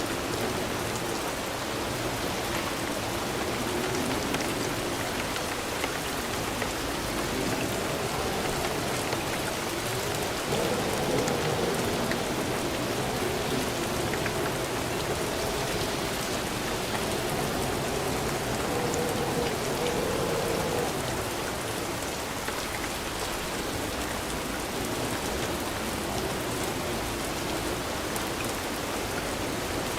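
Steady rain falling on surfaces, an even hiss of many drops that swells slightly louder in the middle.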